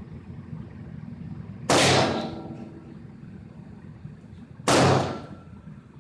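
Two shots from a Rossi M88 .38 Special five-shot revolver, about three seconds apart, each a sharp bang with a short echoing tail.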